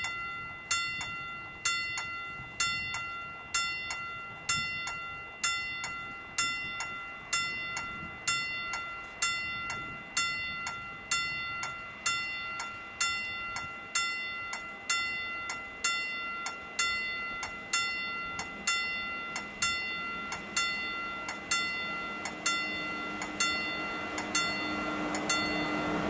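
Railway level-crossing warning bell striking about once a second, each stroke ringing and fading before the next. Near the end a low steady tone and the rumble of an approaching train rise under it.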